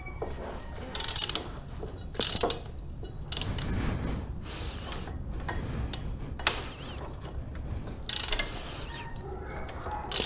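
A 12 mm wrench working the exhaust mounting bolts on a motorcycle, making irregular metallic clicks and clinks.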